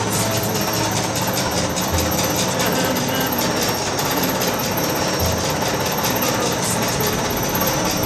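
Tahini mill machinery running: a steady, dense rattling clatter over a low hum.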